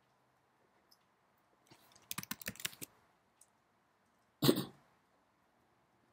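A quick burst of typing on a computer keyboard about two seconds in, with a few faint clicks around it, then a single short, loud cough about four and a half seconds in.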